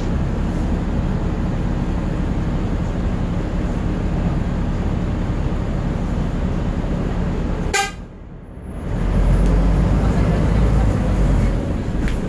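Volvo DM3500 bus running on the road, heard from inside at the front: a steady engine drone. About eight seconds in the sound briefly drops away, then comes back as a heavier low rumble for a couple of seconds.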